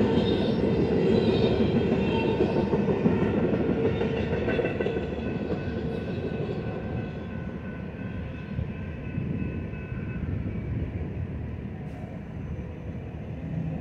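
The rear of a BNSF double-stack intermodal freight train rolling past on the rails, its wheel and car noise fading steadily as the train moves away.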